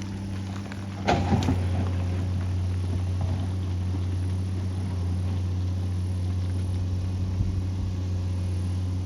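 Excavator's diesel engine running steadily under work, with a short clatter about a second in.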